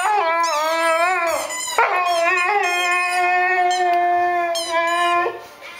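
Large dog "talking" in a run of whining howls: two short calls that rise and fall in pitch, then one long steady howl of nearly three seconds that stops shortly before the end.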